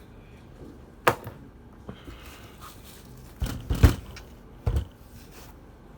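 Sharp clicks and knocks of receipt printer parts being handled while a thermal print head is fitted: one click about a second in, a louder cluster of knocks about three and a half seconds in, and another knock near five seconds.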